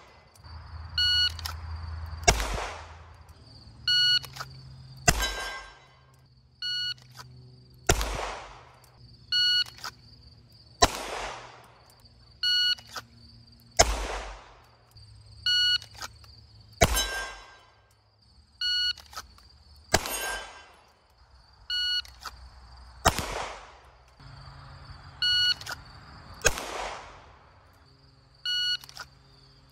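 Electronic shot timer beeps, and about a second and a quarter later a single 9 mm pistol shot from a CZ Shadow 2 cracks and echoes. This repeats about ten times, every three seconds or so: timed fast draws from the holster.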